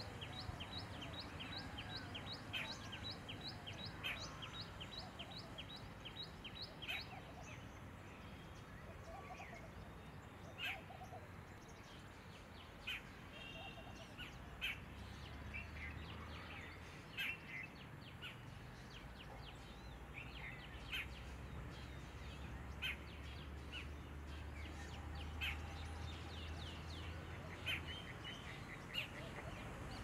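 Small birds calling over a low, steady background rumble: a rapid series of short, high repeated notes for about the first seven seconds, then scattered single chirps every second or two.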